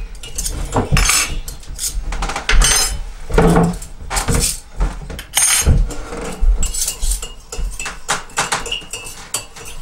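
Cutlery and dishes clinking and knocking around a laid breakfast table, in short irregular clinks.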